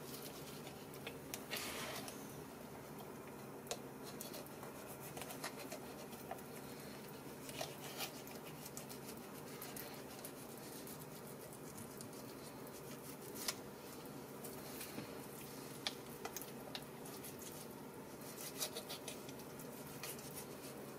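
Faint, scattered clicks and scrapes of a knife working around the leg joint and bones of a duck carcass on a plastic cutting board, over a steady low hum.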